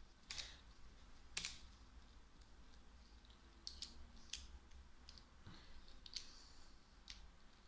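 Faint, irregular clicks and taps of fingers working a device. Two sharper clicks come in the first second and a half, then lighter ones are scattered through the rest.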